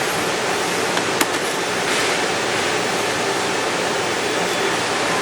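Steady rushing background noise, even and unbroken, with two faint clicks about a second in.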